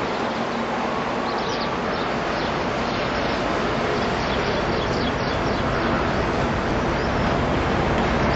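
Wind blowing across the camcorder microphone: a steady rushing noise, with the distant hum of port and city traffic beneath it.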